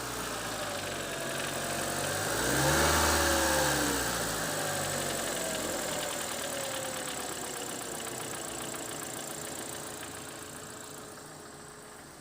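Mitsubishi 4G93 GDI inline-four engine briefly revved about three seconds in, then slowly dropping back in revs, with a rhythmic clatter under the engine note. The owner puts the clatter down to wear in the mesh between the crankshaft and the oil pump drive gear, and says it shows at about 1200–1500 rpm.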